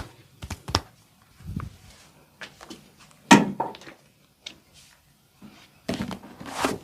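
Irregular taps, slaps and rubbing of hands working on a person during a massage session. The loudest is a sharp knock about three seconds in, and a longer stretch of rubbing noise comes near the end.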